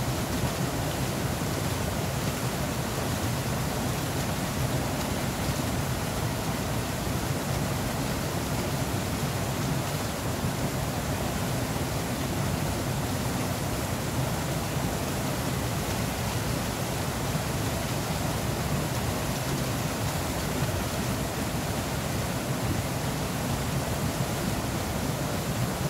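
Steady rushing of flowing water, a constant even roar with no breaks.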